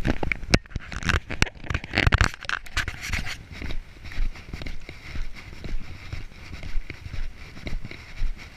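Footsteps crunching on a gravel path, about two steps a second, over a low rumble of wind on the microphone. The first few seconds are louder and busier.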